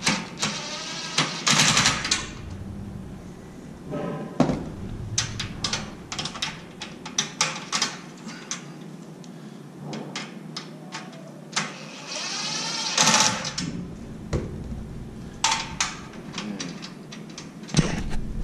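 Hilti cordless impact driver running in short bursts, twice near the start and once about two-thirds through, each a rattling hammer with a motor whine, as it drives the bolts of a new hinge bracket on an aluminium sawhorse. Between the bursts come light clicks and taps of the wrench and metal hardware.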